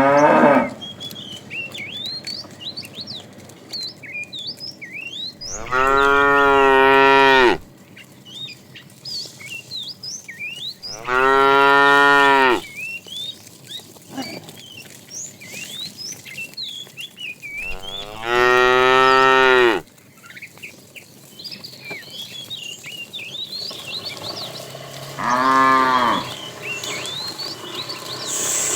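Cattle mooing: four long, loud moos of about two seconds each, spaced several seconds apart, then a shorter moo near the end.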